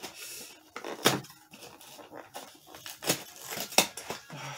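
Cardboard Pokémon card collection box being pried open by hand: cardboard tearing and scraping, with several sharp snaps as the stuck lid gives way.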